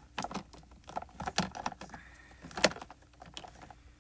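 Small bottles clicking and knocking against each other and against a clear plastic storage box as a hand rummages through them: a quick, uneven run of sharp clicks with one louder knock past the middle.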